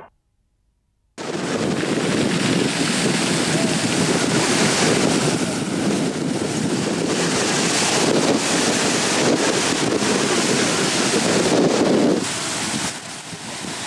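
Breaking surf and wind buffeting a camcorder microphone: a steady rushing noise that starts about a second in, after a brief silence, and eases a little near the end.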